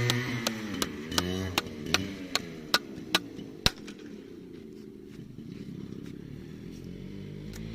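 Yamaha RX-135's single-cylinder two-stroke engine falling back from a rev and settling into a quieter idle, with sharp clicks about every half second during the first four seconds. The revs begin to rise again near the end.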